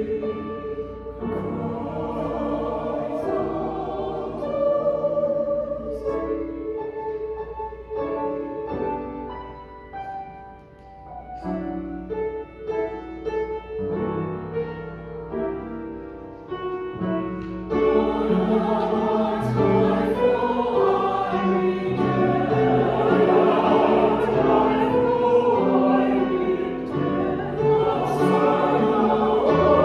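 Small mixed choir singing, growing louder and fuller about two-thirds of the way through.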